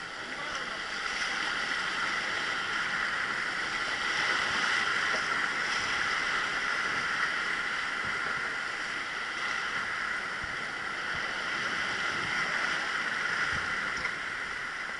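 Rushing river water around a river sightseeing boat, a steady hiss that swells about a second in and eases near the end.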